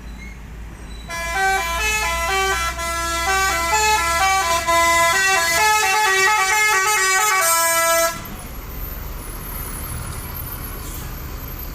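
Tour bus 'telolet' melody horn (Basuri V3) playing a quick tune of stepped notes, starting about a second in and cutting off sharply after about seven seconds. A low rumble of bus engine and road noise runs underneath and remains after the horn stops.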